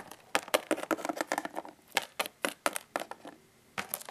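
Irregular sharp clicks and taps with a crinkly rustle in the first second and a half, typical of hands moving plastic toy figures across a tabletop.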